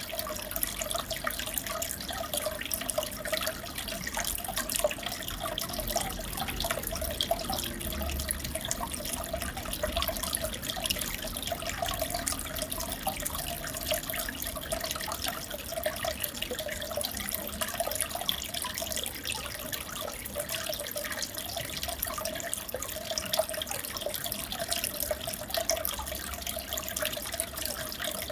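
Aquarium water trickling and bubbling steadily, with a constant patter of small splashes.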